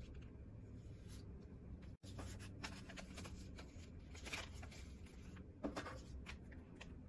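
Paper packaging being handled: the Apple Watch box's paper pull-tab sleeve and folded paper instruction card rustling and crinkling as they are slid off and unfolded. The crinkles come in short irregular bursts, with a couple of louder ones about four and five and a half seconds in.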